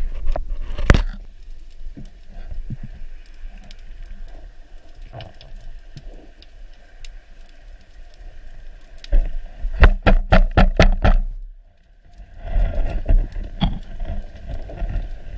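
Underwater sound picked up by an action camera in a waterproof housing mounted on a speargun during a dive: a loud rush of water in the first second, then a low rumble of water moving past the housing with scattered faint clicks. About two thirds of the way through comes a quick run of strong thumps, about three or four a second, followed by a brief lull and more rumble.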